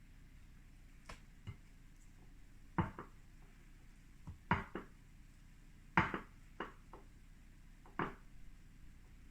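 Irregular kitchen knocks and taps against a dish or bowl as seitan pieces are coated in plant milk and flour. The loudest come about three, four and a half, and six seconds in.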